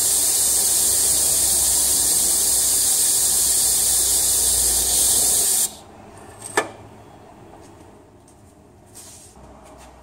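Compressed-air blow nozzle hissing steadily into the drain plug hole of a Ford Powershift 6DCT450 dual-clutch transmission, blowing out accumulated muck and dark residual oil. The air cuts off suddenly a little under six seconds in, and a single sharp metallic clink follows about a second later.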